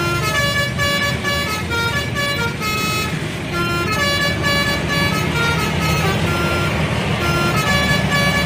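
Bus telolet horn, a multi-tone air horn, playing a melody: a quick run of held notes stepping up and down in pitch, several per second, over the noise of the vehicle.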